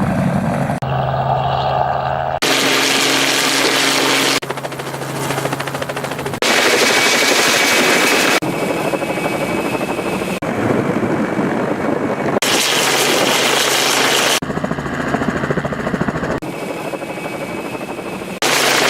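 Helicopter rotor and engine noise in a series of short clips, each about two seconds long, with sudden changes in pitch and loudness at each cut.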